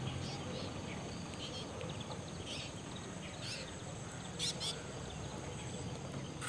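Outdoor ambience: scattered short bird chirps over a steady high insect buzz and a low rumble, with two brighter chirps about four and a half seconds in.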